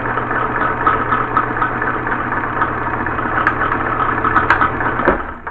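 Vintage Sears Kenmore sewing machine running steadily while sewing a zigzag stitch, its motor humming under the quick ticking of the needle mechanism. It stops abruptly near the end.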